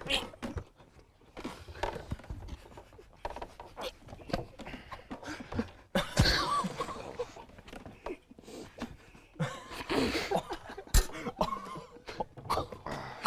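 Heavy, panting breaths and muffled, held-back vocal sounds from a few young men reacting to a rotten-fish smell, with a couple of sharp knocks, one about six seconds in and one near the end.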